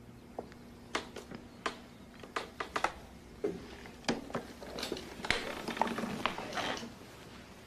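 Soft rustling and a scatter of light taps and clicks as a person rises from an upholstered chair.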